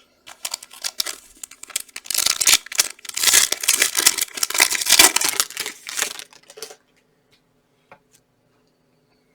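Foil wrapper of a trading card pack being torn open and crinkled, a dense run of crinkling for about six seconds that is loudest in the middle and stops short well before the end.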